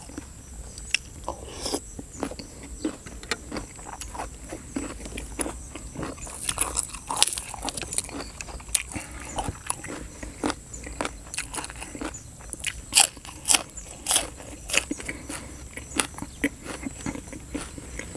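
Close-up chewing of spicy chicken feet and raw green vegetables: wet mouth sounds with many sharp, irregular crunches, loudest in a run of bites about two-thirds of the way through.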